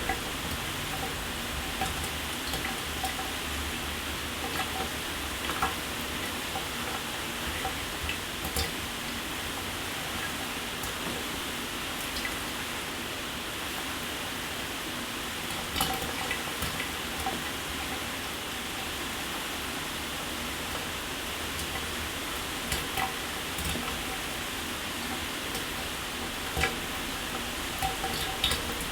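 Shower water spraying steadily onto a surface, a constant hiss with scattered sharper spatters and drips.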